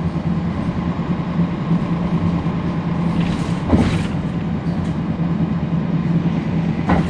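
Inside a NABI 40-SFW transit bus: its Cummins ISL9 diesel engine runs with a steady drone. A sharp knock or rattle comes about halfway through, with a short hiss around it, and another comes near the end.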